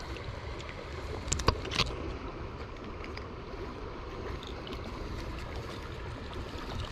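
Steady rush of flowing river water, with two or three sharp clicks about a second and a half in.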